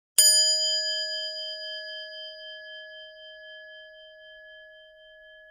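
A single struck bell or chime, rung once, whose few clear tones ring out and fade slowly.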